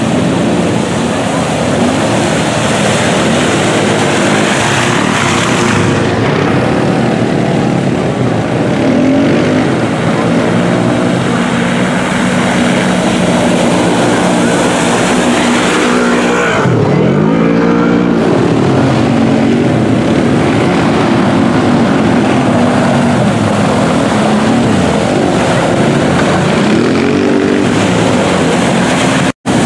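Side-by-side UTV engine revving hard through a mud bog pit, its pitch rising and falling with the throttle over a steady hiss of churning mud and water. A little past halfway the revs drop sharply and climb again. The sound cuts out for an instant near the end.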